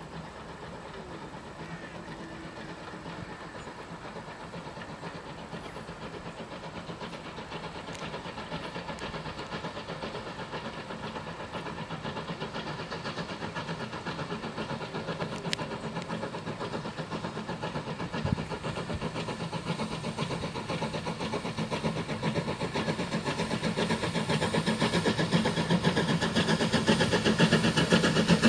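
A steam locomotive working a train toward the listener, its rapid exhaust beats growing steadily louder as it approaches.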